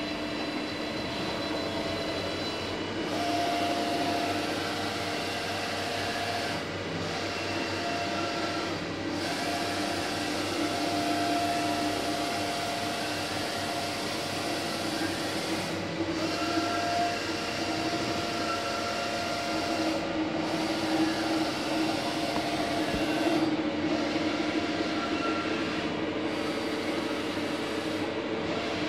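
Mikron WF 51 D milling machine running under power: a steady machine hum with whining motor tones from its axis drives and spindle that start, stop and change pitch every few seconds.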